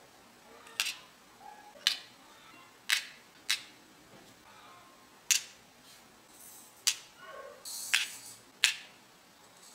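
Candy chocolate beads being set one by one with a plastic pick into a clear plastic mould tray: about eight sharp plastic clicks at irregular intervals, with a little rustling between them.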